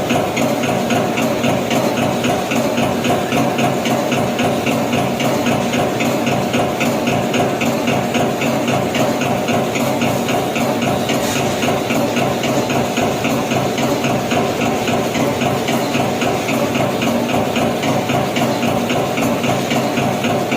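CNC turret punch press running, punching sheet metal in a fast, even series of strokes, several a second, over a steady machine hum.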